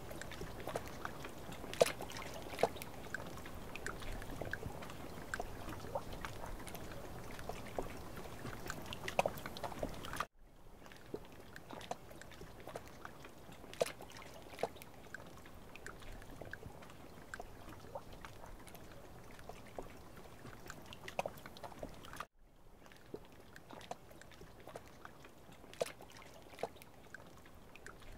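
Faint lakeside marsh ambience: a low steady hiss of water with trickling and many small scattered clicks and drips. The background drops abruptly quieter about ten seconds in and again about twelve seconds later.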